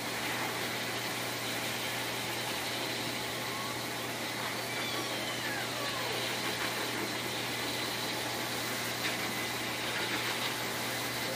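Pet-grooming high-velocity blower dryer running steadily, forcing air through its hose nozzle into a dog's coat: a steady motor hum under rushing air.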